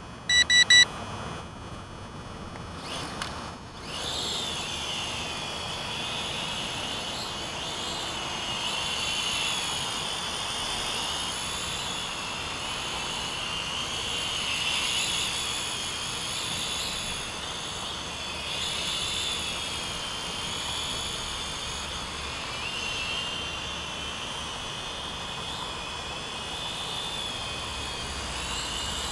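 A few short electronic beeps, then from about four seconds in the small motors and propellers of a toy quadcopter running: a high whine that wavers up and down with the throttle as it lifts off and flies.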